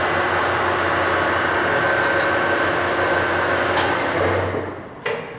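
Moriseiki MS-1250 engine lathe's headstock and spindle drive running steadily at 200 RPM with a steady hum and a faint whine. About four and a half seconds in it is switched off and winds down, and a single clunk follows.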